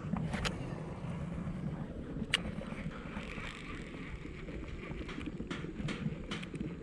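Wind rumbling on the microphone while a baitcasting reel is cast and wound in, with a few sharp clicks from the reel and rod, the loudest about two seconds in.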